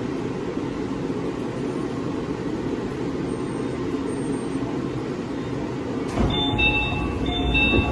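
Steady low rumble of a train standing at a platform, then about six seconds in a thud and a two-note electronic door chime, sounded twice, as the doors are worked.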